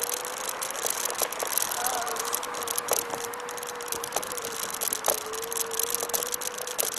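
Xplorer Ambassador electric scooter riding along: its electric motor gives a steady whine holding nearly one pitch, over road and wind hiss. Scattered rattling clicks come from the scooter as it rolls over bumps.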